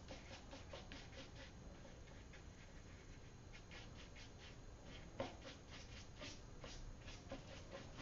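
Paintbrush stroking across watercolour paper: faint, quick swishes a few times a second, with a slightly louder tap about five seconds in.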